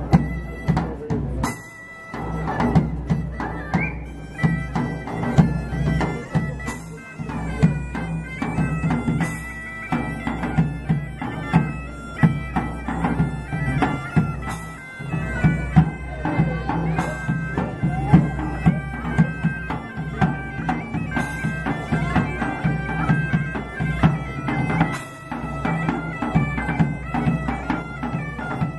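Medieval bagpipes playing a folk tune over a steady drone, with a drum stroke every few seconds.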